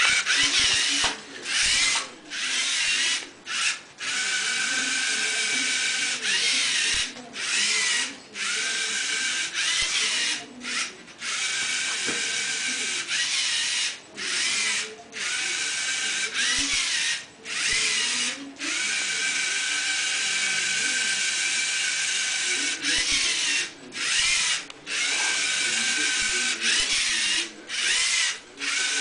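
LEGO Mindstorms NXT robot's electric drive motors and gear trains whining as it drives, cutting out briefly many times and spinning up again each time.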